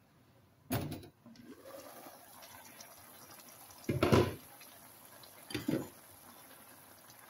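Vegetables simmering in a pan with a steady faint sizzling bubble, broken by three short clatters: one about a second in, the loudest about four seconds in as the pan's glass lid is lifted off, and one near six seconds as a spatula goes into the pan.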